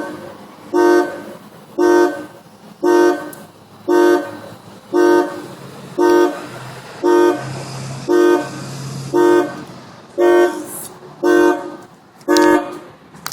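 Car alarm going off, sounding the car's horn in a steady series of short honks, about one a second, all at the same pitch.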